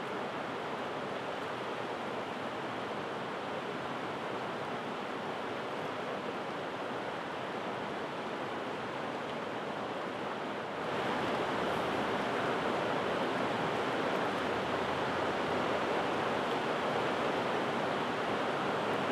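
Steady rush of a river's flowing water over rocks, growing louder about eleven seconds in.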